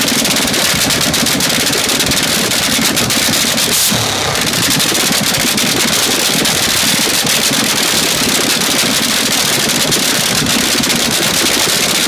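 AA/FD fuel dragster's supercharged engine cackling at idle through open exhaust headers: a loud, steady, rapid crackle.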